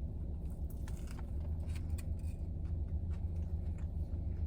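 Steady low hum of a car's idling engine heard inside the cabin, with faint scattered clicks above it.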